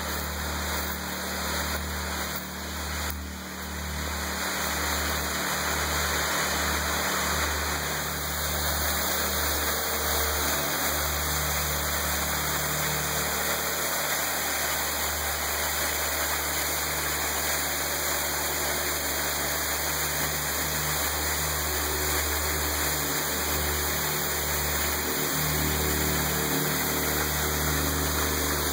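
Waterfall pouring: a steady rush of falling water that grows a little louder over the first few seconds, then holds level.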